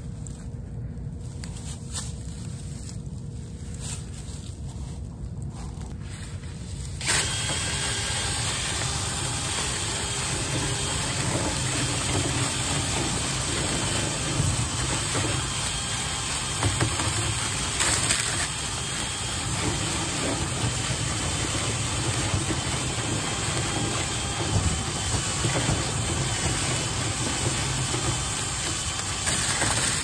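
A low steady hum, then about seven seconds in a cordless drill starts spinning a rotary brush rod inside a lint-clogged dryer vent duct and runs steadily until just before the end, with the rod rattling and scraping in the duct.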